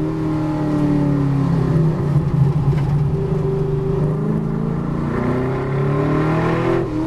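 V8 race car engine heard from inside the cabin: its note falls as the driver lifts off the throttle for a corner, then climbs under full throttle in the second half.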